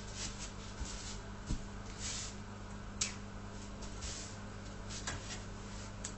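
Vegetable peeler scraping down a carrot in short, irregular strokes, over a steady low hum.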